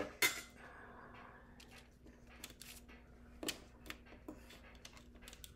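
Clear plastic rhinestone transfer tape being handled: a sharp snap just after the start, then scattered small clicks and rustles over a faint steady hum.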